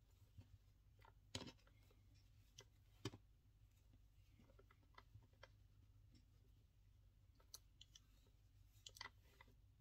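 Near silence: low room hum, with a few faint scattered clicks and taps from hands tying macrame cord knots around a metal keychain clasp, the sharpest about three seconds in.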